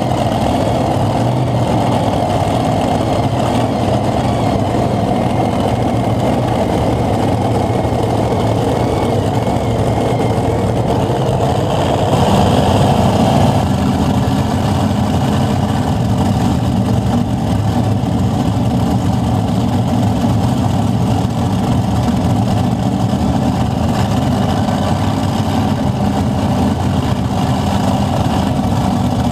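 Heavy engine of a pulling vehicle running loud and steady, its note shifting lower about halfway through.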